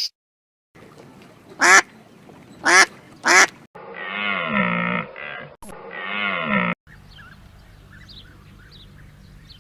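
Sheep bleating: three short, quavering bleats, then two longer, quavering bleats. A faint low hum with a few faint chirps follows near the end.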